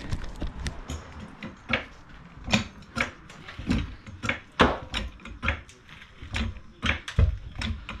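Arcan 3.5-ton hydraulic floor jack being pumped to lift the car, its handle strokes giving a series of short metallic knocks and clicks, about one or two a second.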